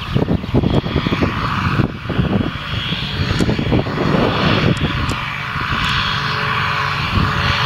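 Narrow-gauge peat railway diesel locomotive running with its train of peat wagons: irregular low knocking and rattling in the first couple of seconds, then a steadier engine drone.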